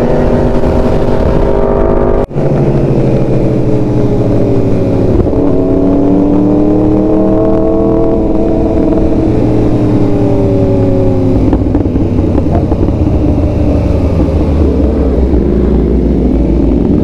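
Sportbike engine running under way on the road, its note rising and falling gently with the throttle. The sound cuts out briefly about two seconds in.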